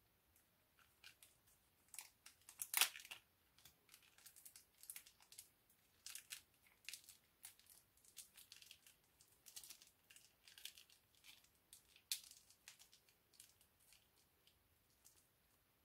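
Small plastic bag of shaving foam crinkling as it is handled, torn open and squeezed: an irregular run of soft crackles, with louder ones about three seconds in and again near twelve seconds.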